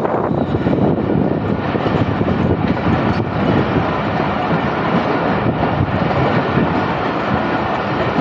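Passenger train running along the track, heard from the open doorway of a moving coach: a steady loud rumble of wheels on rails and rushing air, with a few faint clacks from the track.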